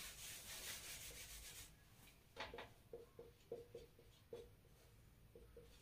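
Faint whiteboard duster wiping across the board, then a marker squeaking in about ten short strokes as a word is written.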